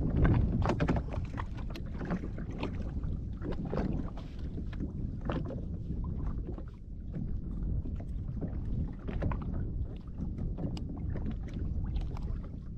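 Steady low rumble of wind and water around a small craft drifting on open sea, with scattered clicks and knocks from fishing tackle being handled: unhooking a small fish and rebaiting. One louder knock comes just after the start.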